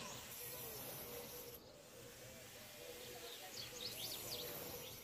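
Faint bird chirps, a cluster of quick rising and falling notes about three and a half seconds in, over a background hiss.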